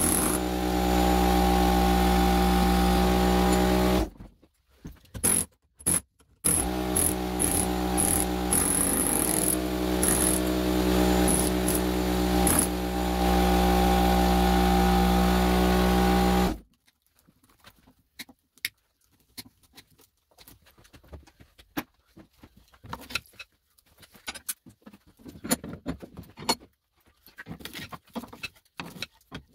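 Pneumatic air hammer chiseling the copper windings out of an electric motor stator clamped in a steel vise, with the air compressor running; loud and steady, with short breaks about four and six seconds in. It stops abruptly about sixteen seconds in, leaving only faint scattered clicks and taps.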